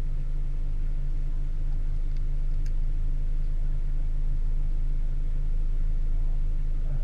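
Convertible sports car's engine idling steadily while the car stands still.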